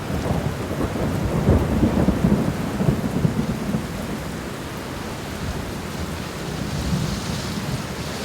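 Thunder rumbling over steady rainfall; the rumble is strongest in the first few seconds, then eases, leaving the even hiss of rain.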